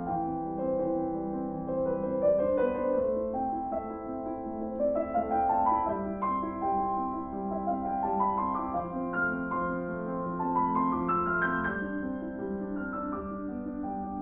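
Background piano music: a gentle melody of held notes, with a rising run of notes about a third of the way in and another near the end.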